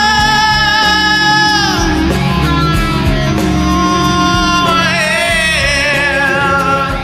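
Hard rock song with high vocals and electric guitar: a long high held note slides down in pitch about two seconds in, then another note is held with a wavering vibrato over the band.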